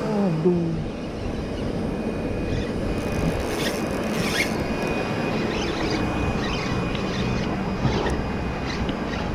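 A steady motor-like drone with a constant thin high whine running through it, and a short falling tone about half a second in.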